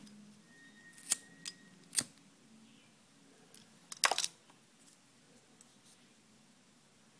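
A few sharp metallic clicks and taps of needle-nose pliers and small treble hooks being handled and set down on a tabletop, with the loudest cluster of clicks about four seconds in.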